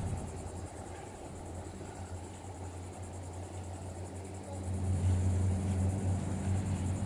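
A low steady hum with rumble, growing louder about four and a half seconds in.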